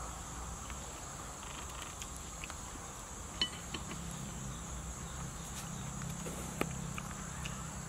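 A steady, high insect drone, with a few short, sharp clicks over it, the loudest about three and a half seconds in.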